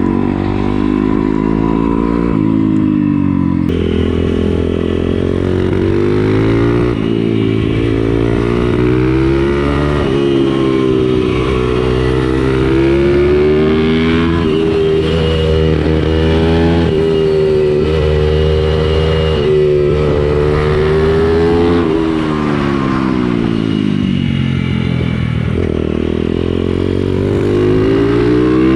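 A small motorcycle engine being ridden hard. It revs up and rolls off repeatedly, its pitch climbing and then dropping every few seconds as it accelerates and slows.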